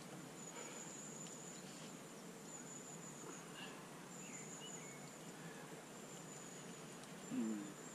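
Insect trilling steadily at a high pitch with short breaks, over faint outdoor background noise. A few faint bird chirps come around the middle, and a brief low vocal sound comes near the end.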